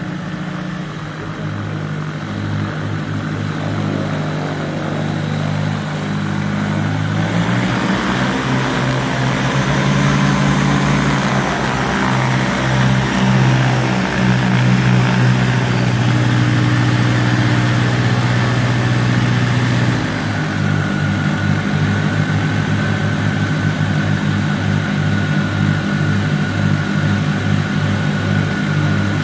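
Twin propeller engines of a Diamond DA42 Twin Star running at low power while taxiing, growing louder as the aircraft comes close. About two-thirds of the way through, the engine note drops slightly and turns into a pulsing idle.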